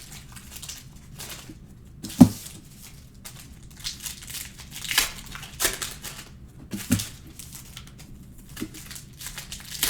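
Crinkling and tearing of trading card pack wrappers being opened by hand, in irregular short bursts, with a sharp knock about two seconds in and a smaller one near seven seconds.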